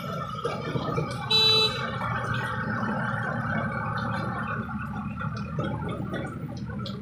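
A short vehicle horn honk about a second and a half in, over a steady mix of background noise.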